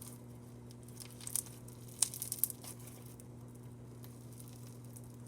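Crunchy slime being squeezed and worked in the hands, giving short bursts of crackling pops about a second in and again around two seconds in, over a steady low hum.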